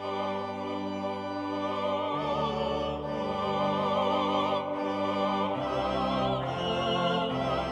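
Classical music with an operatic singing voice over orchestral accompaniment, sustained notes with vibrato and changing chords.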